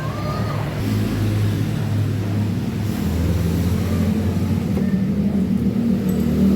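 An engine running steadily, its pitch rising a little in the last couple of seconds.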